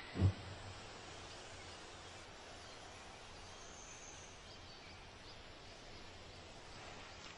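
A short, dull low thump just after the start, then faint steady background hiss.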